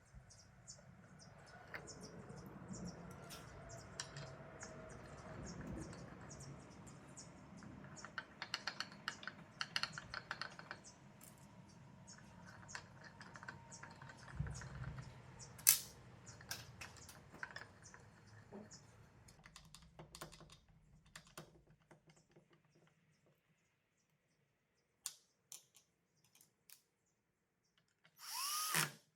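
Many small irregular clicks and taps of hand work with small hardware, over a low hum that fades out about three-quarters of the way through. Just before the end a power drill briefly spins up.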